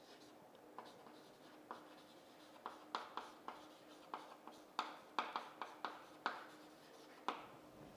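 Someone writing by hand: a faint run of short, quick strokes and taps, with a few pauses between them.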